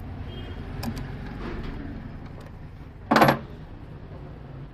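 A short, loud metallic clatter about three seconds in, with a few light clicks before it over a low steady hum.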